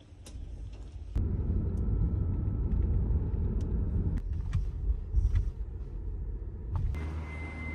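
Low, steady rumble of a car driving, heard from inside the cabin; it starts abruptly about a second in.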